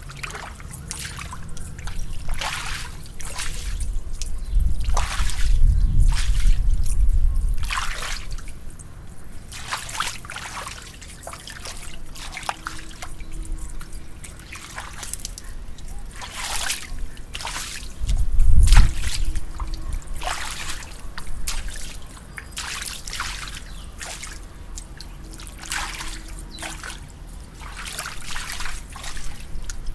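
Rainwater dripping and trickling, with irregular drips and splashes. There are two low rumbles, a longer one about five seconds in and a short one about eighteen seconds in.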